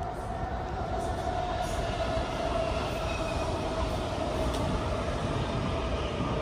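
A train running past, a steady rumble with a whine that slowly slides down in pitch.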